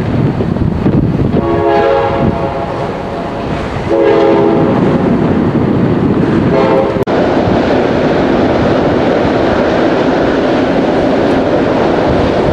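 A horn with several steady notes sounds three times: a long blast about a second and a half in, another at about four seconds, and a short one near seven seconds. All three sit over loud rushing wind noise, which carries on steadily afterwards.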